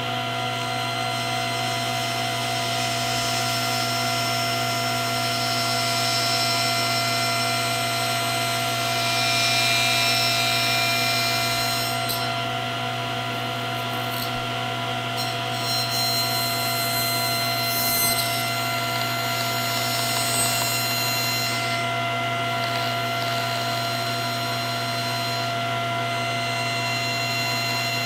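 Table saw running with a steady motor hum while a length of flat-back molding is fed across the spinning blade, taking off a little material at a time.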